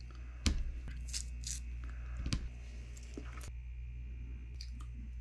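Quiet eating noises: a few light clicks and taps and some soft tearing as roasted sweet potato and citrus are handled and eaten, over a steady low hum.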